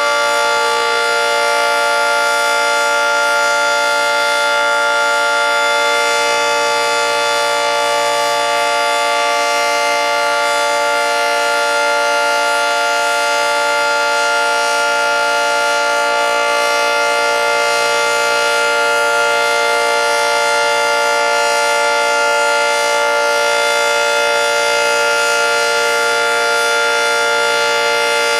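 Early-1960s Federal Signal 2T22 dual-tone outdoor warning siren sounding a steady, loud chord at full speed, with no rise or fall in pitch.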